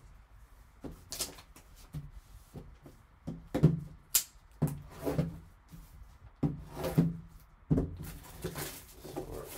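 A sealed trading-card box being opened and handled: irregular knocks and clicks as the lid comes off and the box is handled, with crinkling of its plastic shrink-wrap.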